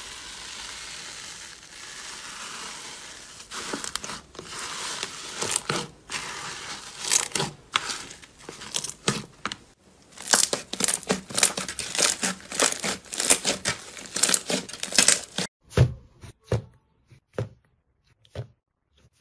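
Slime worked by hand, crackling and popping as it is poked, pressed and pulled apart. There is an even crackle for the first few seconds, then dense crackles and pops. After a sudden break about 15 seconds in come a few separate pops.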